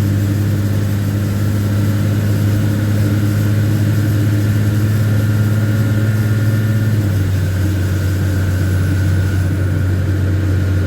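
LMTV military truck's diesel engine running steadily, its pitch dropping slightly about seven seconds in.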